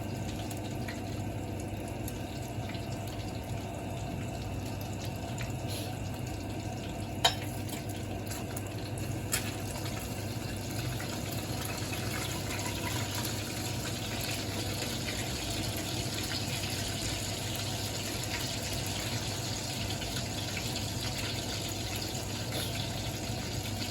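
Pork frying in its own fat in a wok, a steady sizzle that grows busier and more crackly about halfway through. Two sharp knocks, about two seconds apart, stand out near the first third.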